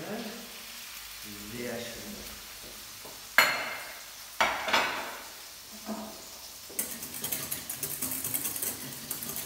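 Salmon fillets sizzling in a hot frying pan, with two sharp clattering knocks about three and a half and four and a half seconds in. From about seven seconds in, a wire whisk beats rapidly against a stainless saucepan, whipping egg yolks into the hollandaise foam.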